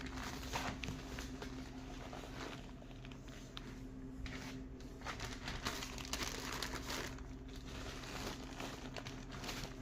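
Plastic sheeting crinkling and crackling in irregular bursts as it is handled, over a steady low hum.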